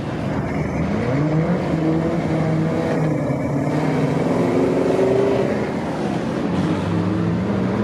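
A supercar's engine pulling away under throttle, its pitch rising about a second in and then holding fairly steady with small rises and dips.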